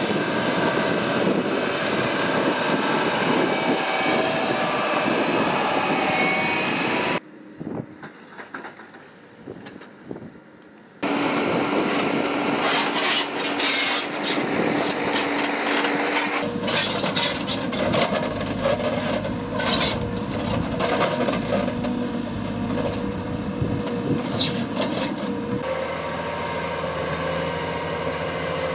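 Heavy earth-moving machinery working on a dirt mountain road: engines running under load, with scraping and clattering of rock and earth. The sound changes abruptly several times, with a much quieter stretch about a quarter of the way in and many sharp clacks in the second half.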